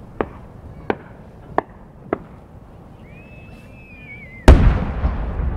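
Fireworks: a few sharp pops spaced about half a second apart, a brief wavering whistle, then near the end a large aerial shell bursts with a heavy boom that rolls on in a long echo.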